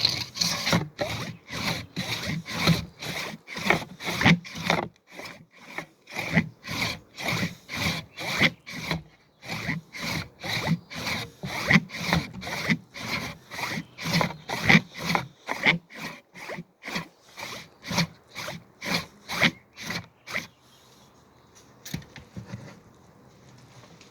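Handsaw cutting through a tree trunk in steady back-and-forth strokes, about two a second, with a couple of short breaks. The sawing stops about twenty seconds in.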